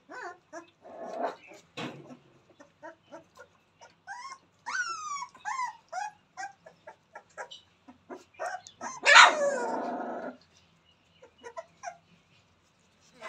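Rottweiler puppies whimpering and yelping: a quick run of short falling whines around five seconds in and one loud, longer cry about nine seconds in, over small wet clicks of lapping milk.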